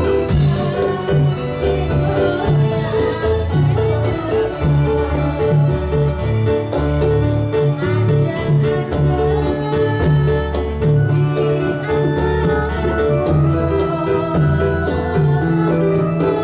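Traditional Javanese Dolalak music: drums beat a steady rhythm under a pitched melody, with a bright jingling hit ticking several times a second.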